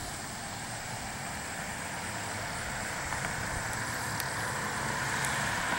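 Steady noise of road traffic, slowly growing louder.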